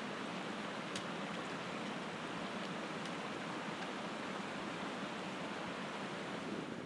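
Steady rush of a mountain creek running over rocks, with one faint tick about a second in.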